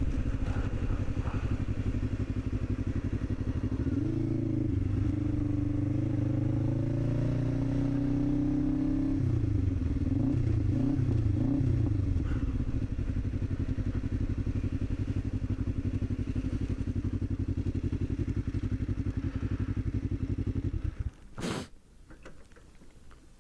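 Kawasaki ER-5 500 cc parallel-twin motorcycle engine running under way: the revs climb, rise and fall a few times, then hold steady. The engine cuts out about two seconds before the end, followed by a single sharp click.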